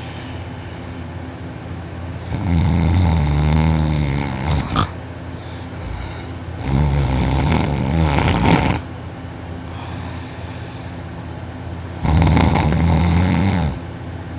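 A young man in deep sleep, lying on his back, snoring loudly: three long snores of about two seconds each, a few seconds apart, over a steady background hum. The first ends in a sharp click.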